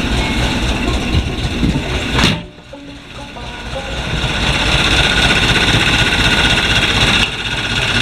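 A 1955 Ford's 272 Y-block V8 idling steadily just after a fresh start. A single thump sounds about two seconds in; the engine then sounds much quieter for a moment and swells back up over the next few seconds.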